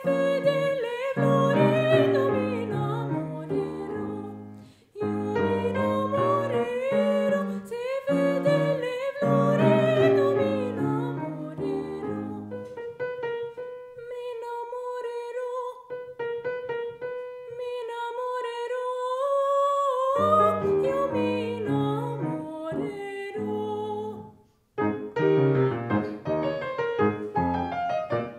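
A woman singing in classical style with vibrato, accompanied by a grand piano. Midway she holds one long note for about seven seconds over sparse piano, and the music breaks off briefly twice.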